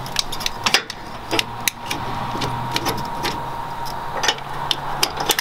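Scattered sharp metal clicks and clinks as a Blue Ox tow bar arm is pinned and clipped to its baseplate bracket, about eight clicks in all. A steady low hum runs underneath.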